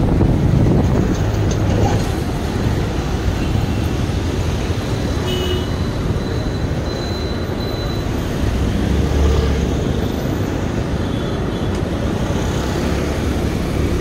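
Steady rumble of road traffic and wind noise while riding along a busy city street on a moving vehicle.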